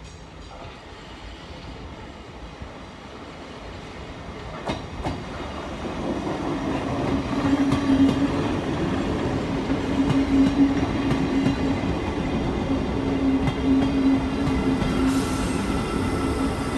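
Siemens Desiro City Class 707 electric multiple unit pulling into a station, growing steadily louder as it approaches and runs past. From about six seconds in, a steady droning tone rides over the rumble and clatter of wheels on the rails.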